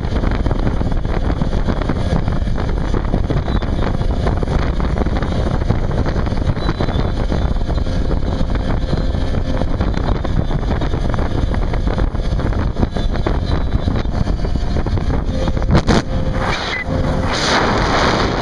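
Motorboat running fast across open water: steady engine and water noise, with wind buffeting the microphone.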